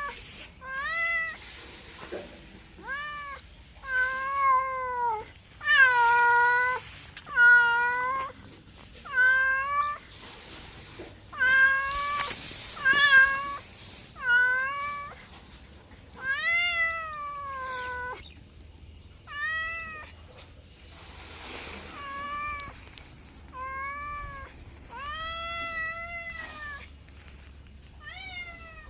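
A cat meowing over and over, about fifteen meows spaced a second or two apart, each rising then falling in pitch, with a longer meow near the end.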